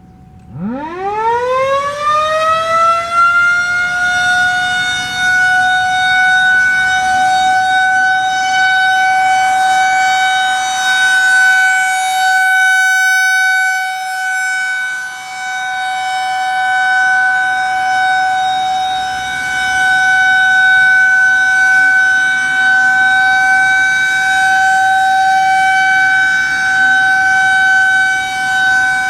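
Federal Signal 2001-130 rotating outdoor warning siren starting up for a test. Its wail winds up from a low growl to a steady high tone in about three seconds, then holds at that pitch, its loudness swelling and dipping as the horn turns.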